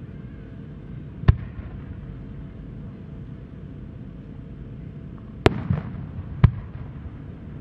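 Aerial firework shells booming in the distance: one sharp bang about a second in, then two more close together near the end, the loudest about five and a half seconds in. The shells are fired from mortars and burst into chrysanthemums.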